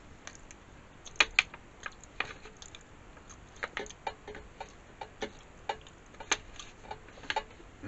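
Eating sounds: a metal fork tapping and scraping in an aluminium foil tray of pizza, mixed with chewing. They come as irregular sharp clicks, the loudest about a second in and again in the middle.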